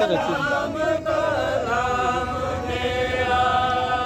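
Voices singing a chant: a wavering line at first, then from a little before halfway one long, steady held note.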